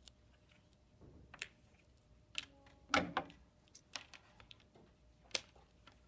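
Scissors cutting 22-gauge speaker wire pulled off its spool, heard as a few scattered sharp clicks and snips with light handling noise; the loudest click comes about three seconds in.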